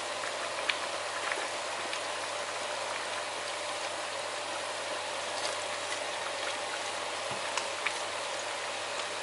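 Coconut-milk red curry with chicken and pickled bamboo shoots simmering in a pan on the stove: a steady bubbling hiss with a few small pops scattered through it.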